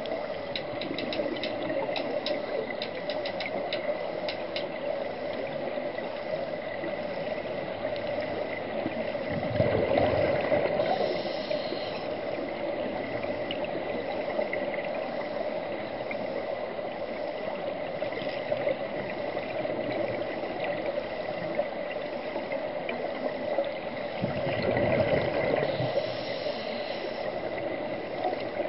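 Underwater sound at a scuba dive: a steady hiss with a thin high whine and faint rapid clicking in the first few seconds, swelling twice into a louder bubbling rush of scuba exhaust bubbles, about ten seconds in and again near the end.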